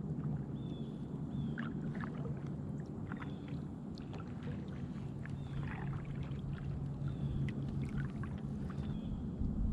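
Kayak paddling: water splashing and dripping off the paddle blades in scattered small splashes. Underneath runs a steady low hum, and a bird repeats a short high call about once a second.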